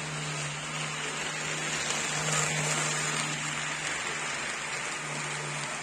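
HO-scale model passenger train running past at speed: a steady rushing rattle of metal wheels on the track, loudest about halfway through as the cars pass close by, over a low steady hum.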